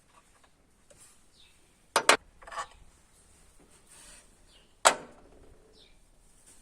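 A few sharp metal knocks from work on the engine's water pump bolts: two quick knocks about two seconds in, a short scrape just after, and a louder single knock near the middle that rings briefly.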